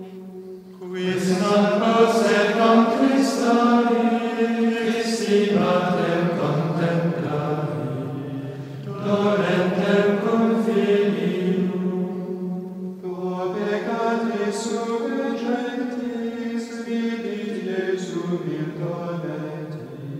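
Slow vocal chant: long held sung notes in phrases several seconds long, with short breaks between the phrases.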